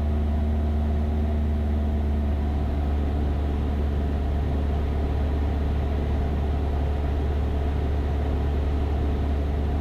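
Cessna 172's piston engine and propeller in cruise, a steady low drone heard from inside the cabin.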